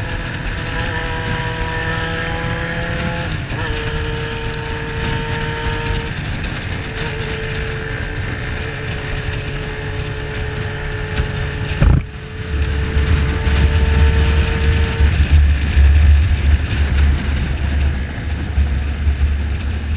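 Motorcycle engine running at a steady cruise from the ridden bike, its pitch dropping a little about three seconds in. A sharp knock comes about twelve seconds in, after which a heavy low wind rumble on the microphone joins.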